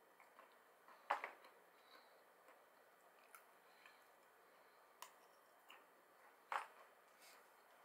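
Quiet eating of edamame: a few short clicks and smacks as the pods are squeezed between the teeth and the beans chewed, the loudest about a second in and again near the end.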